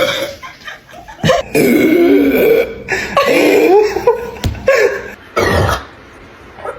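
A person burping long, drawn-out burps after drinking carbonated Sprite, the pitch wavering through each, with shorter burps near the end.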